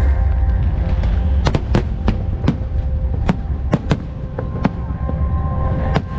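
Fireworks going off in scattered sharp bangs, about ten irregularly spaced across a few seconds, over a steady low rumble.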